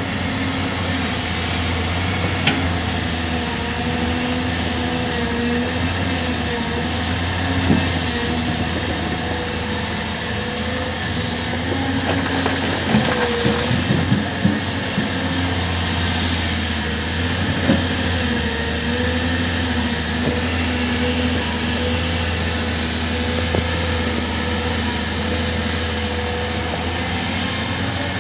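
Excavator's diesel engine running steadily under load, with a wavering hydraulic whine that dips and recovers every few seconds and a few short knocks of rock.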